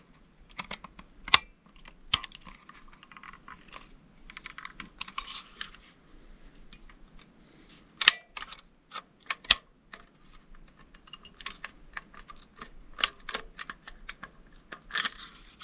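Plastic clicks, taps and scraping as the guide box shoe (nosepiece) of a Makita autofeed drywall screwdriver is worked into the feed housing by hand, with a few sharper snaps as it is pushed home.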